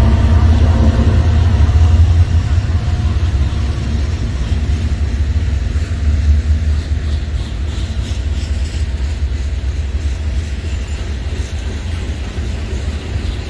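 BNSF freight train rolling past. The diesel locomotive's engine drones for the first couple of seconds as the last unit goes by, then gives way to the steady rumble of covered hopper cars rolling on the rails, slowly easing off.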